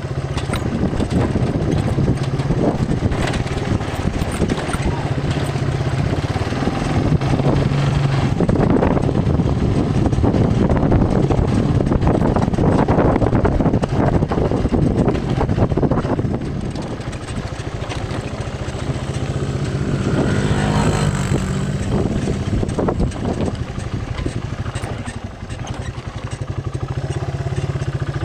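A small engine running steadily, changing pitch briefly about twenty seconds in.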